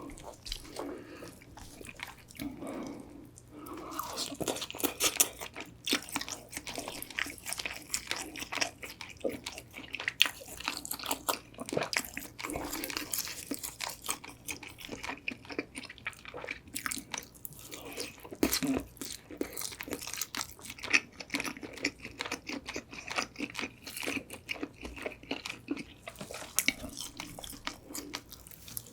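Close-up crunching and chewing of Korean old-style crisp-fried whole chicken: irregular crisp crackles of the fried skin between bites, with softer chewing in between.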